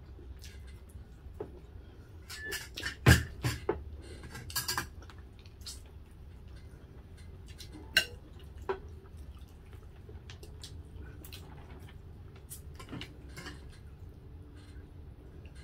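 Spoons and forks clinking and scraping against plates and bowls during a meal, with a cluster of clatters a few seconds in and two sharp clinks about halfway through.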